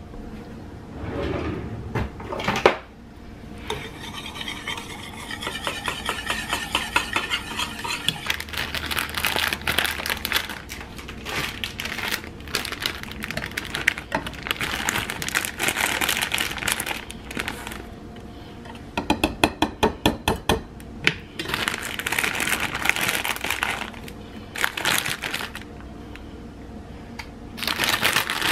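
Metal wire whisk beating a thick mayonnaise dressing in a ceramic bowl: fast, steady clinking and scraping of the wires against the bowl, with a run of about eight louder clinks a little past the middle. Near the end a plastic bag crinkles as shredded lettuce is tipped in.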